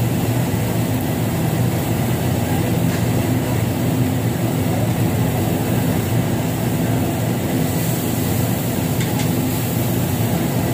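Steady low drone of ventilation fans drawing air through the overhead exhaust ducts of tabletop barbecue grills, even and unbroken throughout.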